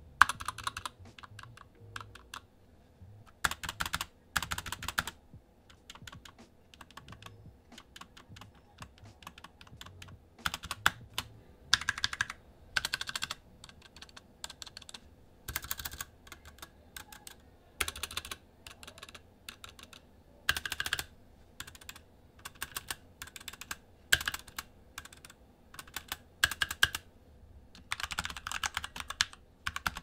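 Typing on Magicforce Smart 68 mini mechanical keyboards with tactile Gateron Brown switches. The keys clack in irregular runs with short pauses between them, and the boards are typed on in turn.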